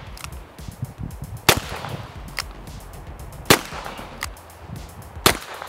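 Three handgun shots, about two seconds apart, each a sharp crack with a short tail.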